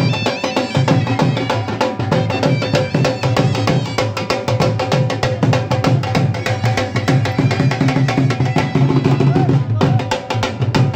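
Music with fast, dense drumming, which breaks off for a moment near the end before a melody comes back in.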